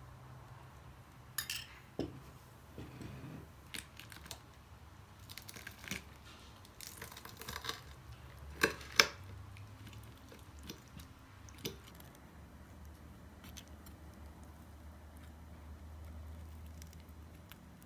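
A metal spoon clinking and scraping against a ceramic bowl and plate while a thick white sauce is spooned onto fried cutlets, in scattered light taps with two sharper clinks close together about halfway through.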